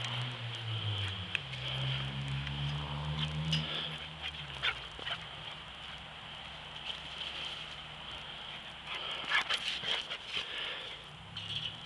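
American pit bull terrier playing in snow, making small dog sounds. A cluster of sharp scuffs and clicks comes about nine seconds in as it pushes its nose into the snow and runs. A low drone sounds behind it for the first few seconds.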